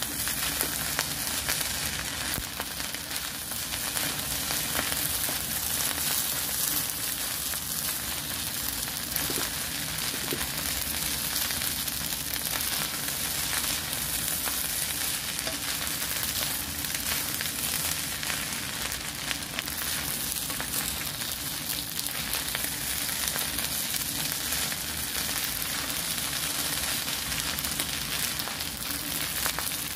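Fried rice (sinangag) sizzling steadily in a hot nonstick pan while a wooden spatula stirs and turns it, with light scraping and small clicks against the pan.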